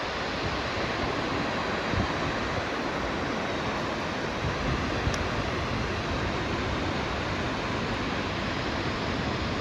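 Shōmyō Falls, a very tall waterfall, heard as a steady, even rush of falling water.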